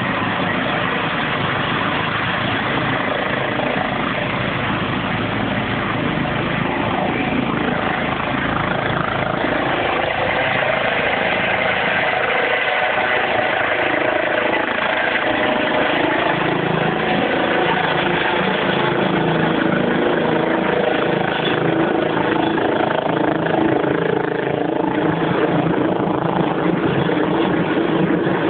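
Rescue helicopter's turbine engines and rotor running at full power as it lifts off, hovers and climbs away: a loud, steady rotor-and-engine noise that grows slightly louder partway through.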